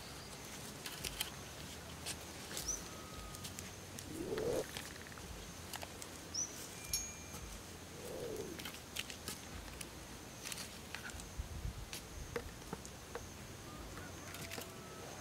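Birds chirping with brief high whistles over open-field ambience, with scattered light knocks and rustles from a hoe working the soil and footsteps in grass. Two short low calls that rise and fall stand out, about 4 and 8 seconds in.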